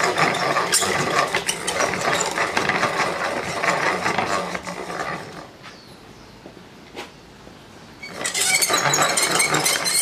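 Square wood stock spinning against the adjustable blade of a dowel-maker cutter head, the blade shaving it round with a dense, rapid clattering. The cutting stops about five and a half seconds in, with one sharp click during the pause, and starts again at full loudness about two seconds later.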